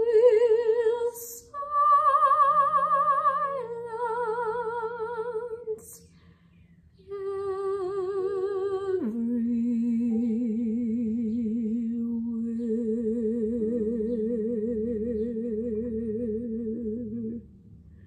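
Classical soprano voice singing an art song with wide vibrato over piano accompaniment: a few short phrases, a brief pause, then a long low note held until about a second before the end.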